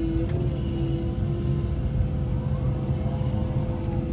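Cat 312E L excavator heard from inside the cab: the diesel engine running under load with a steady hydraulic whine over a deep rumble, and a tone that rises and falls about three seconds in as the arm swings the bucket out to dump.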